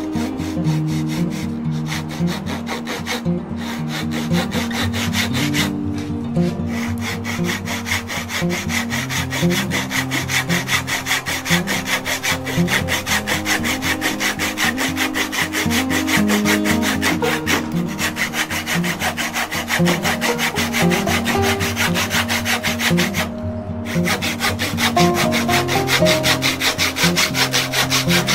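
Fine-toothed hand saw cutting through a small block of wood in rhythmic back-and-forth strokes, pausing briefly a few times.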